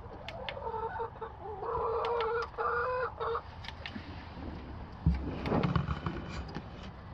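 Domestic hens vocalizing: a drawn-out, wavering call lasting about three seconds. About five seconds in comes a heavy thump and a second of scuffling as a hen lands on the coop's wooden top.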